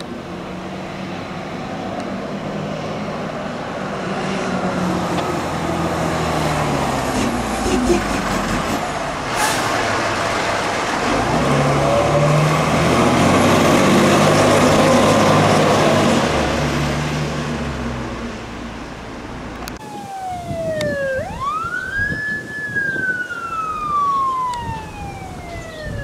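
Fire engine driving past on an emergency response, its diesel engine and siren building to a peak as it passes, about halfway through. After a sudden change near the end, an electronic wail siren slowly rises and falls.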